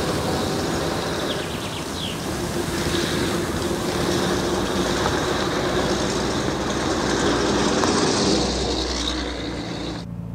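Vintage sedan's engine running as the car drives fast over rough ground, with a steady rushing noise. Near the end the sound drops to a lower, steadier engine hum, as heard from inside the car.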